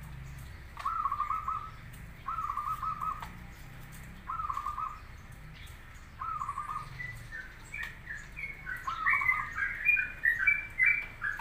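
Zebra dove (perkutut) cooing: five short phrases of quick notes, each under a second, about two seconds apart. From about seven seconds in, higher, quicker chirps from another bird join in and grow louder toward the end.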